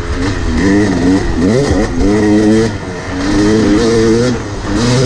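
Yamaha YZ250X single-cylinder two-stroke dirt bike engine revving in about five surges, the pitch rising and falling as the throttle is opened and rolled off while riding a trail.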